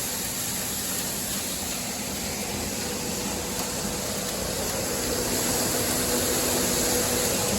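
Grain drying and handling machinery running steadily: a continuous fan-like rush with a faint low hum underneath, growing slightly louder.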